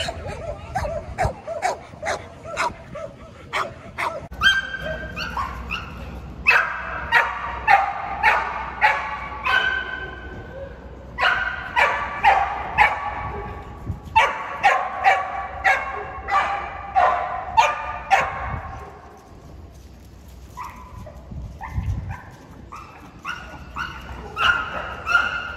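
Pit bulls barking over and over in quick, sharp series, with a short pause about three-quarters of the way through before the barking starts again.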